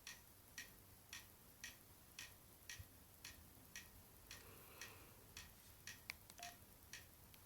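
Faint, regular ticking at about two ticks a second, with a few quicker extra clicks near the end.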